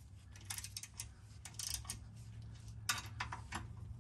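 Hand ratchet wrench clicking in short, irregular runs of ticks as it tightens the bolts of a rear differential brace a little at a time.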